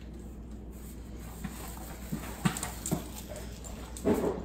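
A dog's claws clicking a few times on a tile floor as it steps down from a box and moves across the kitchen, then a brief vocal sound from the dog about four seconds in.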